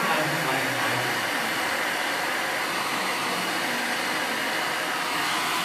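Steady whooshing of a small electric blower running at an even speed, like a hair dryer.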